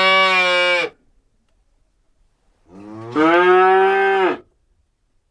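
Two long, steady-pitched moos. The first stops about a second in, and the second comes from about three to four and a half seconds in.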